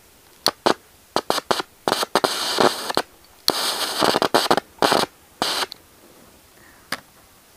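A hand-held piezo gas-stove lighter is clicked again and again, giving a dozen or so sharp snaps, at the nozzle of a tube carrying acetylene from calcium carbide in water. Two longer hissing bursts come about two seconds in and again about three and a half seconds in, as the gas is being lit.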